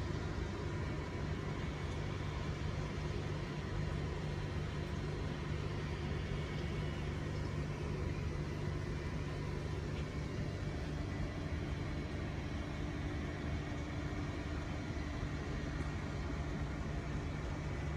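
Steady low rumble of distant road traffic, with a faint steady hum.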